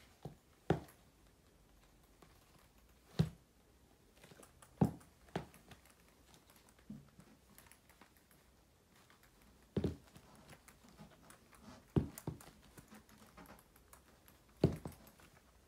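Black platform boots with chunky block heels stomping on a hard floor while squashing small clay figures: about a dozen sharp knocks of heel and sole, coming singly or in quick pairs a second or more apart.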